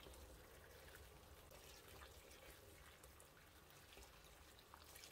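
Very faint splashing and dripping of water as peeled baby eggplants are rinsed by hand in a bowl of water, close to silence.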